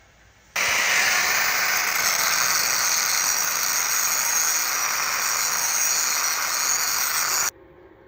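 Stick-welding arc burning with a steady crackling hiss. It is struck suddenly about half a second in and broken off abruptly about seven seconds later.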